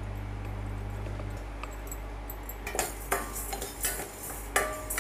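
A spoon stirring dry horse gram seeds in a stainless steel pot, with repeated scraping and clinking strokes from about halfway in. A steady low hum stops about a second and a half in.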